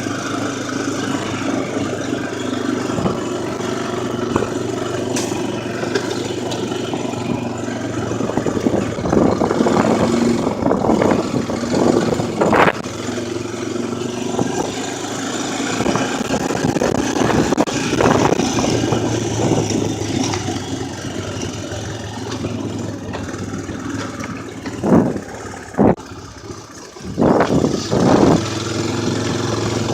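ATV (four-wheeler) engine running as it is ridden, the engine note rising and falling with the throttle. There are a few short, sharp knocks near the end.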